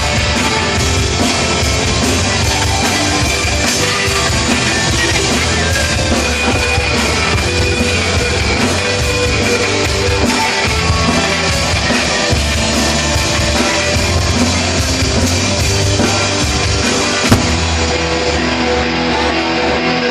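Rock band playing live, drum kit and guitars loud and dense, with one sharp knock about seventeen seconds in.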